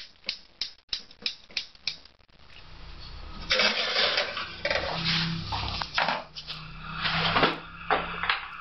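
A hand-held spark lighter clicking rapidly, about eight times, at a gas stove burner. Then the burner catches, and the gas flame hisses steadily, with a few knocks as a steel pot is handled on the grate.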